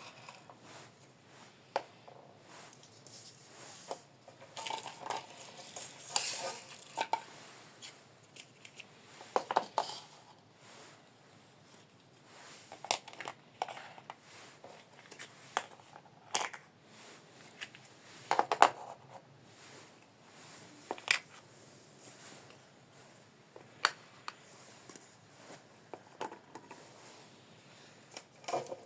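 Small plastic toy kitchenware pieces clicking, tapping and clattering as they are handled, in irregular short knocks with pauses between; the loudest clatter comes about two-thirds of the way through.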